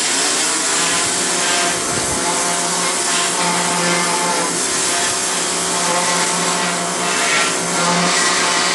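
A motor-driven machine starts abruptly and runs steadily with a loud, hissing whir and a low hum.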